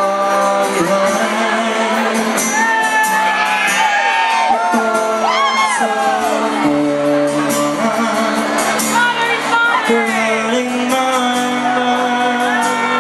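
Live folk-rock band playing: accordions over acoustic guitar, electric bass and drum kit, with held melody notes and a steady cymbal beat.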